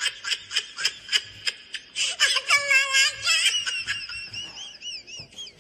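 High-pitched laughter and squealing, in quick repeated bursts.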